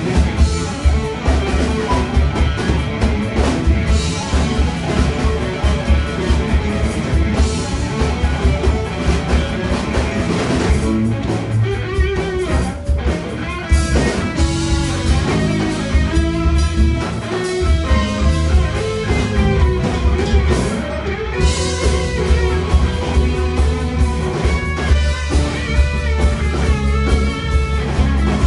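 Live rock band playing: electric guitar, bass guitar and drum kit, with a keyboard, in a steady, dense passage.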